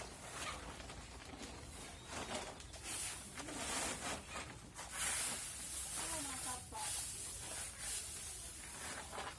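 Irregular hissing and rustling noise that swells several times, with faint voices in the background.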